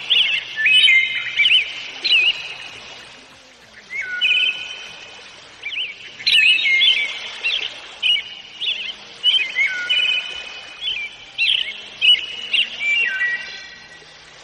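A songbird singing: phrases of quick chirps and short whistled notes that sweep up and down, repeated with brief pauses, including a pause of about two seconds after the first phrase. A faint hiss lies underneath.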